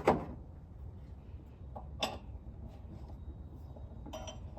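Sharp metal clinks of bolts and tools being handled: one loud clink at the start, a lighter one about two seconds in, and a quick rattle of small clicks near the end.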